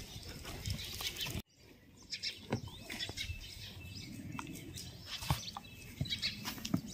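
A dog chewing and pawing at a rope and a woven straw ring on a webbed cot: scattered rustles and small clicks. The sound cuts out briefly about a second and a half in.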